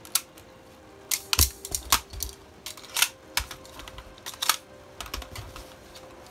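Airsoft guns being handled: a busy run of sharp clicks and clacks, with a few dull thumps among them.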